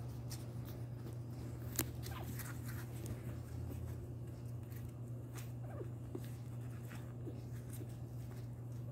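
Faint, brief squeaks from week-old Chihuahua puppies nursing, with small clicks and rustles as they feed, over a steady low hum.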